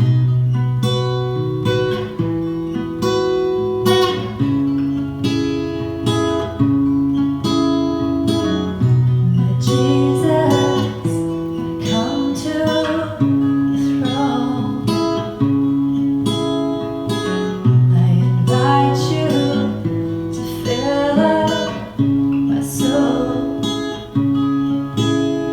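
Acoustic guitar strumming chords of a slow worship song. A singing voice joins about ten seconds in.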